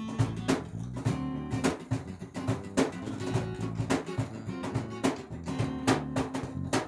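Live pop-rock band playing an instrumental passage between sung verses: guitar, bass and drums on a steady beat.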